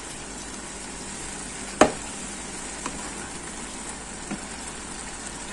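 Grated carrots sizzling in a non-stick kadai over full flame as a wooden spatula stirs them, the water they released cooking off. One sharp knock about two seconds in.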